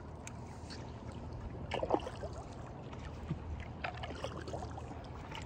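Lake water lapping and splashing lightly against an inflatable stand-up paddle board, with a cluster of small splashes about two seconds in and more a couple of seconds later, over a low steady rumble.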